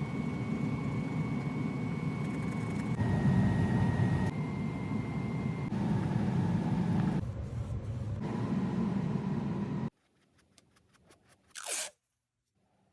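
Paintbrush scrubbing and scraping acrylic paint on canvas, in short clips cut together over a steady background hum. About ten seconds in it cuts to near silence, with a few faint clicks and one brief downward swish.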